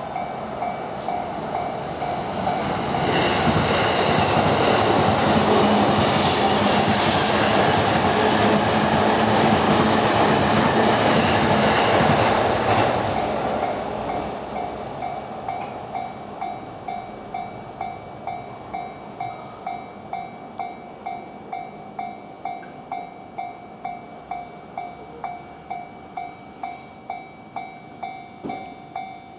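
Level-crossing warning bell ringing in an even, rapid beat while a train runs through the crossing. The train's rush of wheels on rail is loud for about ten seconds and then fades. The bell keeps clanging about twice a second after the train has gone.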